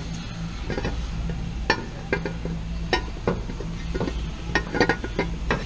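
Metal hand tools and hardware clinking and clicking irregularly, about a dozen sharp knocks with a cluster a little before the end, during work on an R154 transmission bell housing. A steady low hum runs underneath.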